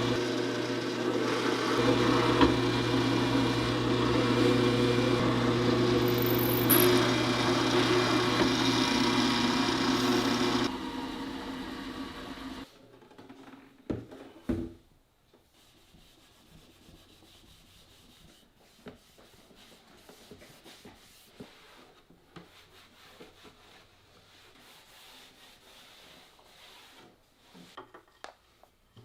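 A motor-driven woodworking tool runs steadily against wood with a constant hum, then stops about eleven seconds in. Faint, scattered rubbing and light knocks on wood follow.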